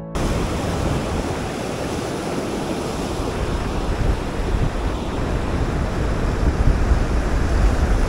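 Ocean surf washing and breaking over rocks close by, a steady rushing wash, with wind buffeting the microphone.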